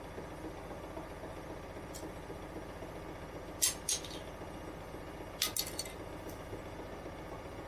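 Zanussi IZ 16 S front-loading washing machine running steadily partway through a wash cycle, its motor turning the drum. Two pairs of short sharp clinks are heard in the middle of it.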